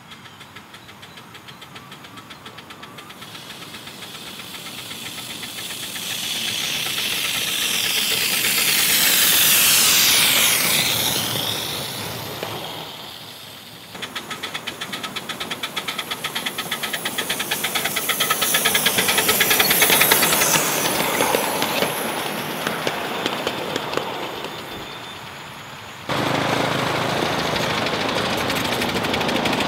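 Wood-burning 2.5-inch-scale live steam locomotive running by: a fast, even run of exhaust chuffs and steam hiss that swells as it approaches and fades as it goes, twice. Near the end a different steady noise takes over suddenly.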